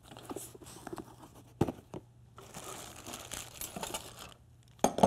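Plastic and foil packaging crinkling and rustling as it is handled and moved aside, with scattered small clicks and two sharp knocks, one about a second and a half in and one near the end.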